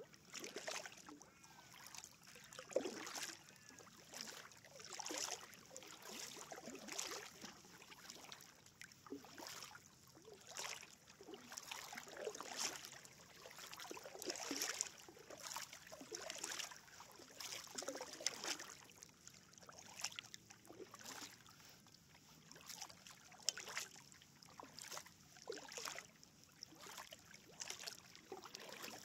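Kayak paddle strokes: a double-bladed paddle dipping into calm lake water and pulling through, making a small splash and trickle about once a second in a steady rhythm.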